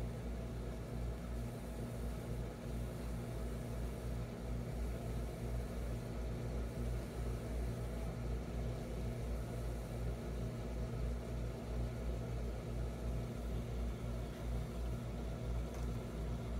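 Reef aquarium pumps running: a steady low hum with a fluttering rumble beneath it and a faint even hiss of moving water.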